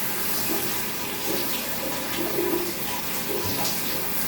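Shower water running steadily and spraying onto a cat's wet fur as it is rinsed.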